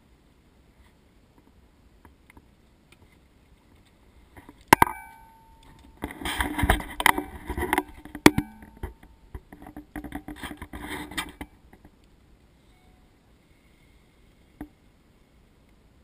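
Knocks and rattling of things being handled close by. A sharp clank rings briefly about five seconds in. Then come two spells of rattling and knocking, with a second ringing clank between them.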